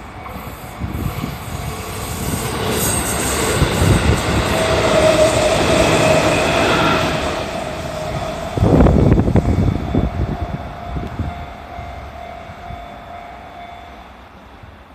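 JR Central 311 series electric train passing at a level crossing: it rises to a loud rush with a steady whine, then heavy wheel clatter over the rails about nine seconds in, and fades away as it goes.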